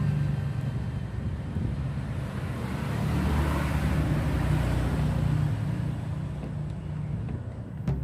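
A motor running with a steady low hum, easing off about a second in and picking up again around three seconds.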